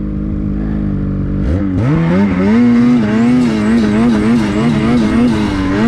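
Ski-Doo Summit X Expert Turbo snowmobile's turbocharged 850 two-stroke engine running at low revs, then revving up sharply about a second and a half in and holding high revs, its pitch wavering as the sled pushes through deep powder.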